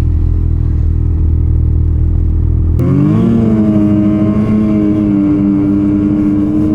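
Ski-Doo Renegade 850 snowmobile's two-stroke engine running at a steady low speed, then about three seconds in picking up abruptly, its pitch rising before it holds steady at trail speed.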